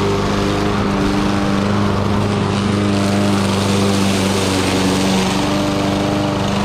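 Troy-Bilt TB110 walk-behind lawn mower's small engine running steadily at constant speed.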